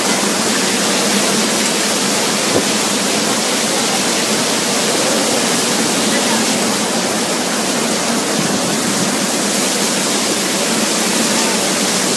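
Hurricane wind and driving rain: a loud, steady rushing noise that does not let up.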